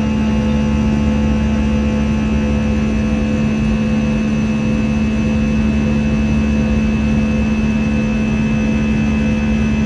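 Jet engines of a Boeing airliner running steadily: a constant drone with steady whining tones over the rush of air, holding one pitch throughout.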